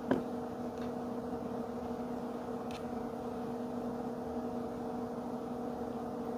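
A steady electrical hum with two even tones, with a light click at the start and a faint tick near the middle.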